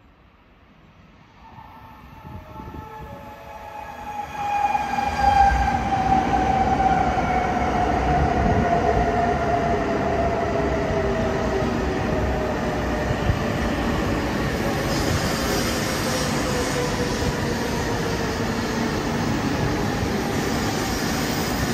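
E2 series Shinkansen train approaching: a whine that falls slowly in pitch grows louder over the first few seconds. Then a loud, steady rush of the train running past from about five seconds in.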